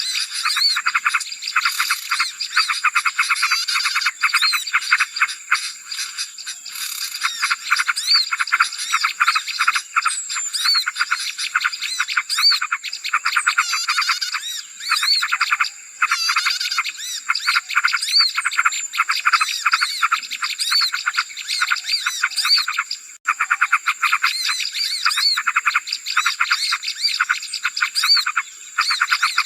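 Busy, noisy chorus of small songbirds chirping and twittering rapidly over one another, as in a bird-lure recording for calling in small birds, with a thin steady high tone running underneath.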